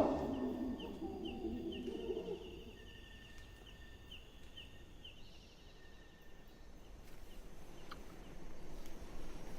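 Tropical rainforest ambience: the tail of a low animal call fades out over the first two seconds, while faint, high pulsing trills repeat every second or so for about five seconds. The forest then goes almost quiet before a soft swell of background sound near the end.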